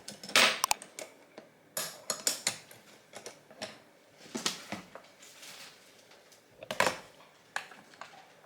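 Irregular light clicks and clattering of small hard objects being handled on a table, with a louder knock about two-thirds of the way through.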